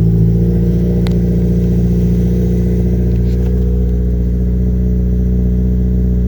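2019 Subaru WRX's 2.0-litre turbocharged flat-four engine idling steadily just after starting, running on a newly installed DW300c fuel pump. A light click sounds about a second in.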